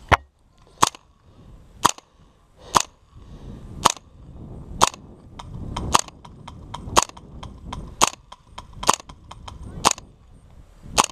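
Airsoft rifle fired in single shots, a sharp crack about once a second, around a dozen in all, with fainter clicks of other shots between them.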